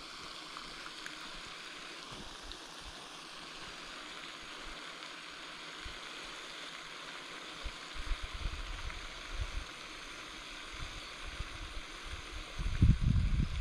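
Steady rushing hiss like flowing water, with low rumbling bumps starting about eight seconds in and a louder rumble just before the end.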